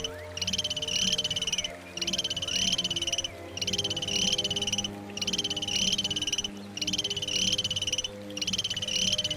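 An animal's high, rapid pulsing trill, repeated in even runs of just over a second with short breaks, about six runs in all, over a faint low steady hum.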